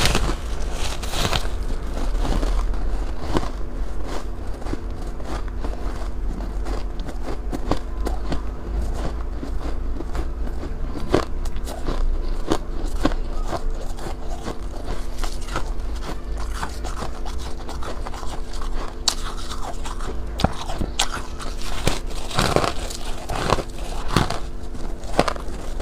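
Ice being bitten and crunched in the mouth close to the microphone, with irregular sharp cracks and crunches that come thicker near the end, over a steady low hum.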